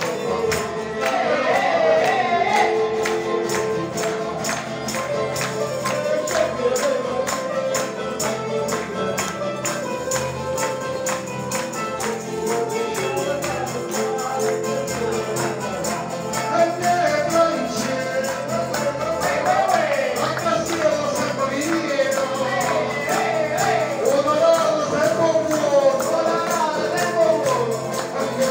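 Live folk band playing: strummed acoustic guitars with a tambourine keeping a steady, fast beat, and a voice singing over it.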